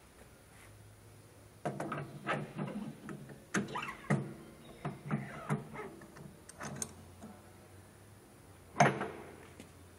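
Metal-on-metal clinking and scraping as the circular-blade roller of a stainless-steel vegetable dicing machine is slid by hand onto its shaft: a run of irregular knocks starting a couple of seconds in, then one sharp, louder clack near the end as it seats.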